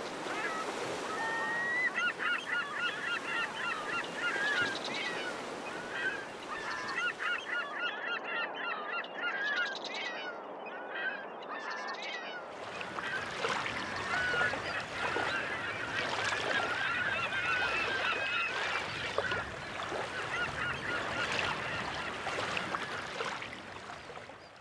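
A flock of water birds calling, with many short overlapping calls over a steady background hiss. The hiss grows fuller about halfway through.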